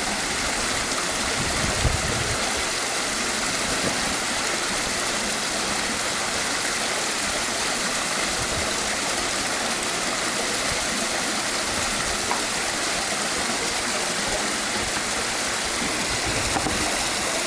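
Swimming pool waterfall running, water pouring steadily into the pool with an even splashing rush.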